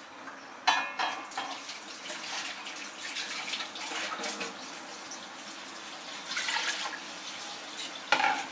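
Rice and curry broth simmering in an aluminium pot on a gas stove, a steady fluttering bubbling as the water heats towards the boil. A short click comes about a second in.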